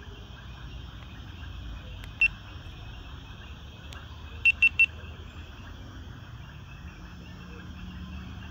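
GoPro Hero9 Black action camera beeping as its buttons are pressed: one short high beep about two seconds in, then a quick run of three beeps a couple of seconds later.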